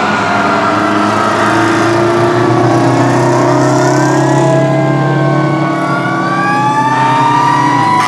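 Several antique fire-truck sirens wailing at once, their pitches rising and falling slowly and overlapping, over the engines of the trucks driving past.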